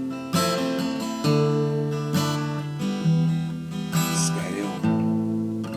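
Acoustic guitar strumming chords, a new chord struck about once a second, with no singing.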